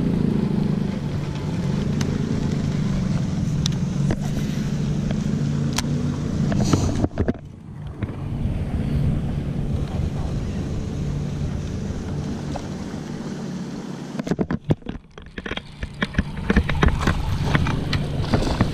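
A boat motor hums steadily and low, with wind on the microphone and scattered sharp clicks of rod and reel. In the last few seconds the sound grows busier with clatter and splashing as a hooked bass is fought to the boat.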